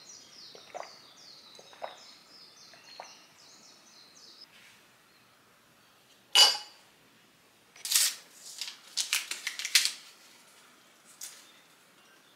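Tabletop handling of metal and glass teaware. A single sharp metal clink about six seconds in as a tealight is set into a stainless-steel wire warmer stand, then a quick run of light clicks and rattles a couple of seconds later. Faint cutlery clicks against a bowl and quick high chirps come early on.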